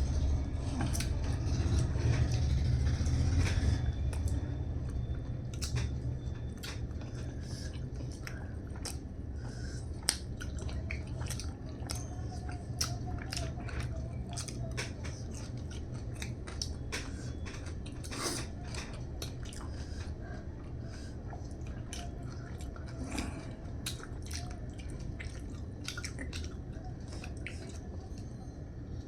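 A person chewing and biting food close to the microphone: many short, irregular wet clicks and smacks, over a low steady hum that fades after about four seconds.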